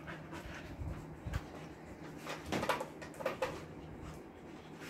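Scattered light knocks, taps and scuffs from a Siberian husky moving about and putting its front paws up against a glass sliding window and its sill.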